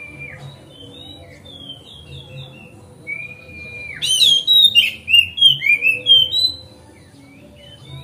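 Oriental magpie-robin (kacer) singing: soft chirps and a held whistle, then about four seconds in a loud run of rapid, varied whistled phrases lasting two to three seconds.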